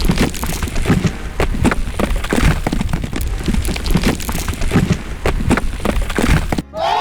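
Animated sound effects of crashing and clattering: many irregular sharp knocks over a steady low rumble, with a short break near the end.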